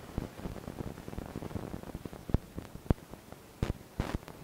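Several short, sharp clicks and knocks over a steady hiss, most of them in the second half.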